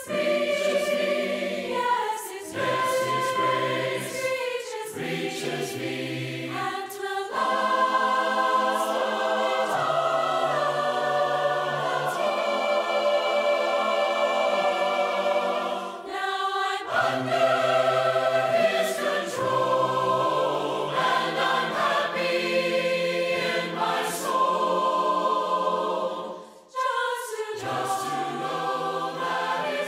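Choir singing a hymn in harmony, without instruments, in long held phrases with short pauses between them.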